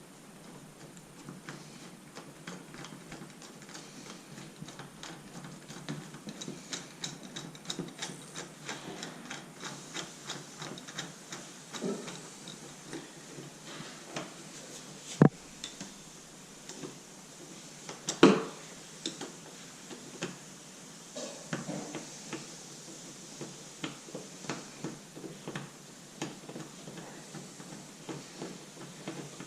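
Screwdriver driving the mounting screws of a door knob, a run of small clicking ticks. Two sharp knocks about three seconds apart, roughly halfway through.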